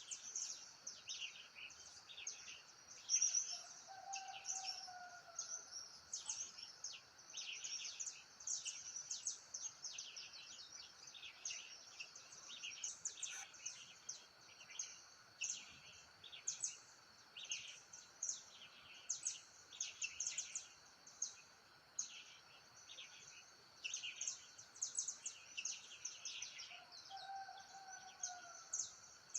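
Many birds chirping rapidly and without pause over a steady high insect hum. A lower whistled call sounds twice, about four seconds in and again near the end.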